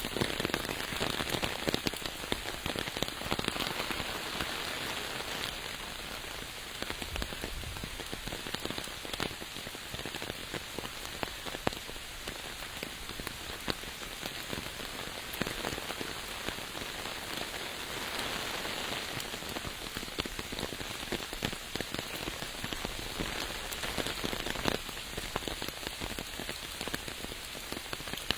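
Steady rain falling, with many separate drops ticking close by amid an even hiss.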